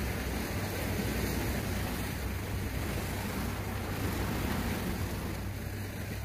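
Sea waves washing and breaking against shoreline rocks in a steady rush of surf, with wind on the microphone.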